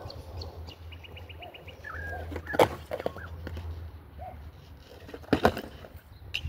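Skateboard knocking sharply twice, about three seconds apart, over the low rumble of its wheels rolling on concrete. Birds chirp throughout, including a quick run of high notes about a second in.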